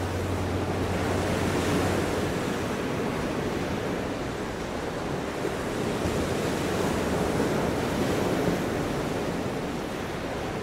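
Ocean surf washing in a steady, slowly swelling rush, with a low hum underneath that fades out about two seconds in.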